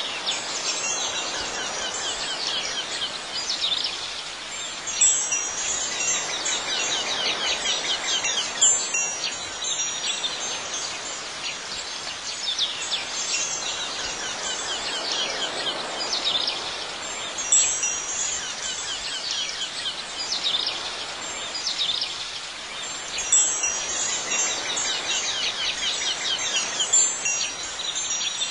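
Ambient soundtrack of high, ringing chime tones that swell and fade every few seconds over a soft steady hiss.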